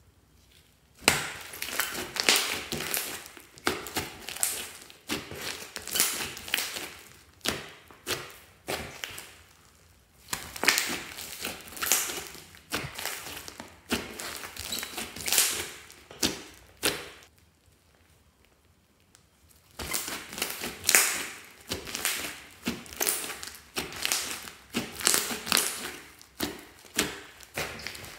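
Hands squeezing and kneading a large mass of slime mixed with foam beads: dense runs of small sticky pops and clicks as the slime is pressed and pulled apart, pausing for about two seconds near two-thirds of the way through.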